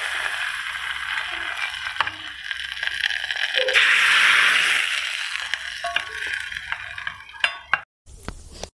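Hot tempering of mustard seeds and red chillies sizzling in a steel pot of green leaf thambuli. The sizzle swells loudest about four seconds in and then dies down, and a few sharp clicks come near the end.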